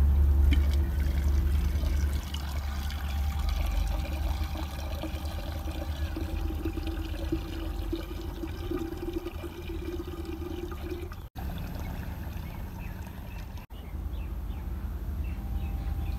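Water pouring and trickling into a small clay pot and splashing onto wet ground, broken twice by brief gaps near the end.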